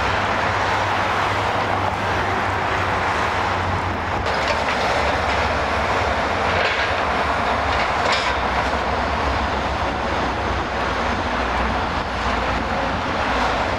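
Hydraulic demolition excavator with a grapple running steadily while working timber and brick rubble, its engine noise constant, with a few faint clatters of debris partway through.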